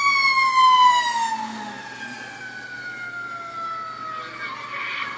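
Fire truck siren wailing, one long tone falling slowly in pitch, loudest in the first second and then fading.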